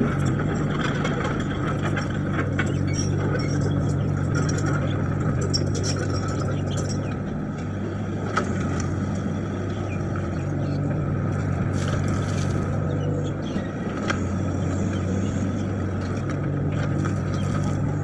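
Hitachi mini excavator's diesel engine running steadily while it works, its note easing and returning a few times as the hydraulics take load, with occasional metallic clanks from the bucket and tracks.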